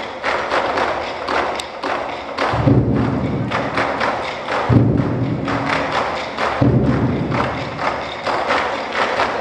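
24 Seasons Drums (24 Festive Drums) ensemble of large barrel drums struck with sticks: a steady run of sharp strikes, about four or five a second. Three heavier, deeper, ringing strokes land about two seconds apart.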